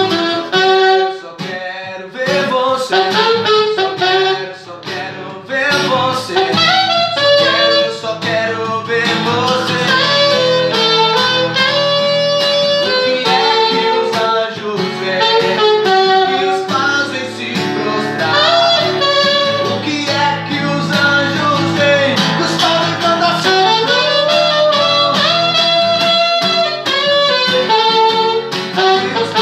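Alto saxophone playing a melody over a strummed acoustic guitar.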